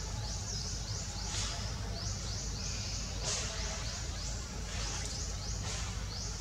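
Outdoor forest ambience: a high-pitched chirping that repeats about two to three times a second over a steady low rumble, with a few brief rustles.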